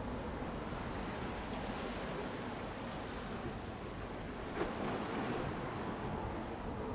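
Steady wash of sea waves and wind on the microphone, with one short knock about four and a half seconds in.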